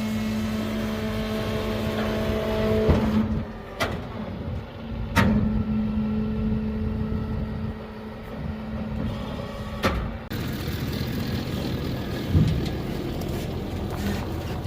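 An engine running at a steady pitch. It drops out about three seconds in, picks up again about two seconds later and fades near the end, with a few sharp knocks.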